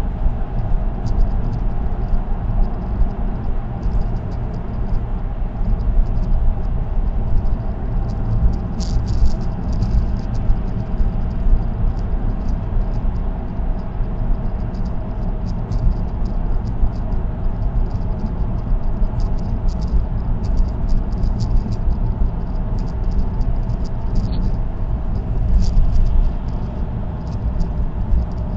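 Steady road and tyre noise from a car cruising on an expressway, heard from inside the cabin, with a deep rumble. Light irregular ticking rattles sound throughout.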